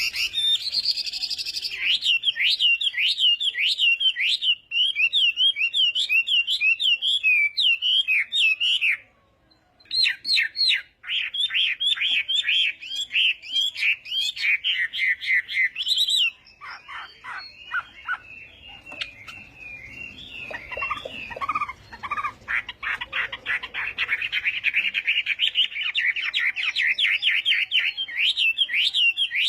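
Chinese hwamei singing a long, fast song of rapidly repeated whistled notes. There is a brief pause about nine seconds in, then a stretch of lower, more varied phrases midway before the quick repeated notes return.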